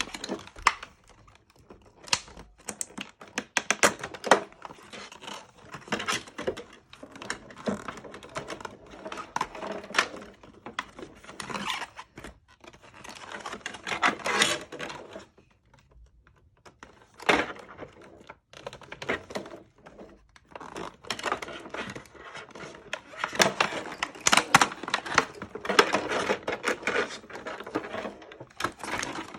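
Headphone packaging being handled and opened by hand: irregular crinkling, rustling and tearing with many sharp clicks and taps, pausing briefly about halfway through.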